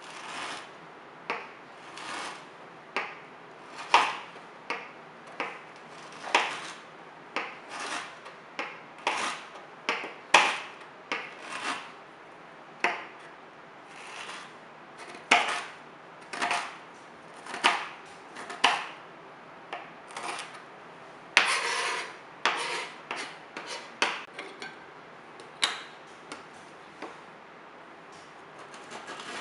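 Chef's knife chopping whole wheat crackers into small bits on a cutting board: irregular sharp chops, about one or two a second, with one longer stroke about two-thirds of the way through.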